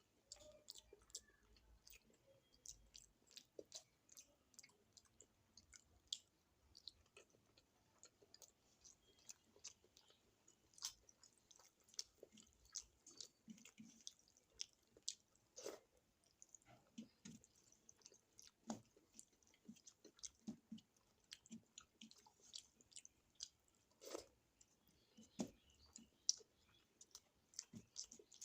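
Close-up sounds of a person eating a spicy Indian meal of curry, rice and paratha: quiet chewing with many short, irregular mouth clicks and smacks.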